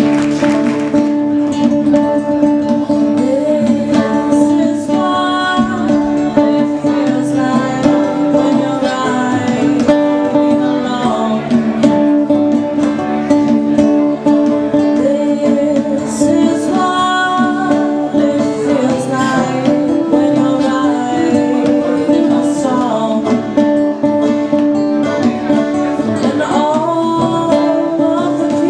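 Live acoustic folk music: acoustic guitar and banjo playing together, with a woman singing over them.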